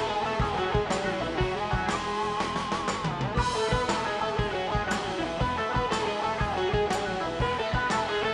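Instrumental break of an Anatolian folk song played by a folk-rock band: bağlama and electric guitars over a drum kit keeping a steady beat, with a wavering bent note about two seconds in.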